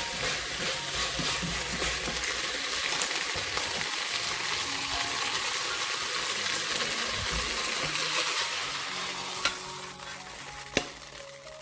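Shredded pork and bell peppers sizzling in a hot wok while a spatula stirs and tosses them, with quick scraping strokes. The sizzle drops away about nine and a half seconds in, and then comes a sharp knock, followed by a second one about a second later.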